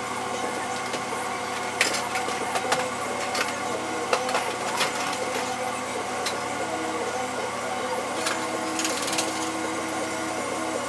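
Commercial kitchen ambience: a steady hum of exhaust hood and kitchen equipment, with scattered sharp clatters of cookware and utensils as a cook works at the range, the loudest about two seconds in and a quick run of them near the end.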